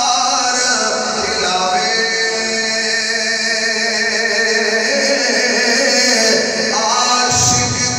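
A man's voice chanting melodically into a microphone, in long held notes that shift pitch slowly, in the sing-song style of a recitation within a sermon.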